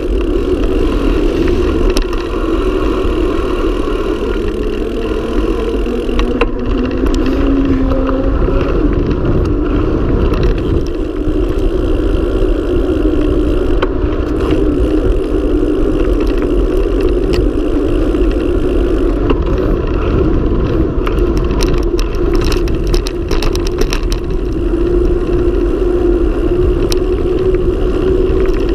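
Wind rushing over the camera and the mountain bike's tyres humming on asphalt during a fast downhill run. A burst of clicks and knocks about two-thirds of the way through, the bike rattling over bumps in the road surface.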